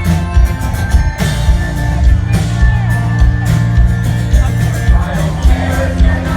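Rock band playing a song live, loud, with a steady drum beat under sustained guitar and bass notes.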